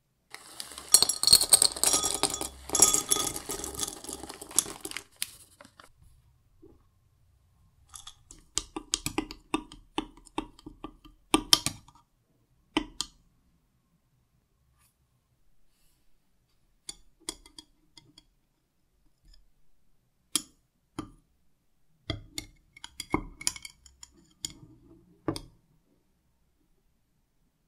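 Metal utensils clinking and tapping against a small glass cup as melted coating chocolate is stirred and chocolate truffle balls are dipped on a fork, in scattered clusters of sharp clicks. It opens with several seconds of dense scraping and rustling handling.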